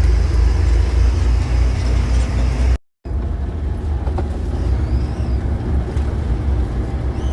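Heavy farm vehicle engine running steadily with a deep drone. The sound cuts out for a moment about three seconds in and resumes on the next clip.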